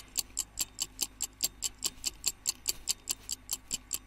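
Ticking-clock sound effect: rapid, even ticks, about six a second, marking a countdown while time is given to think.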